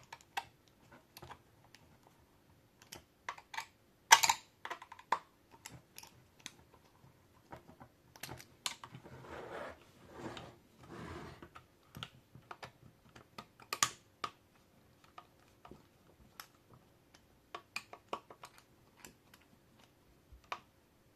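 Irregular clicks and taps of hard plastic and metal as a hex screwdriver tightens the tensioner bolts and hands move the 3D printed tracks, with one sharper knock about four seconds in. Around the middle there are a few seconds of soft rustling.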